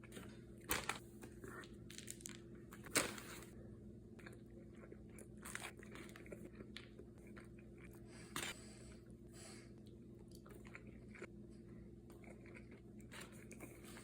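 Close-up eating sounds: scattered bites, crunches and small mouth clicks, with sharper bites about a second in, about three seconds in and about eight seconds in, over a steady low hum.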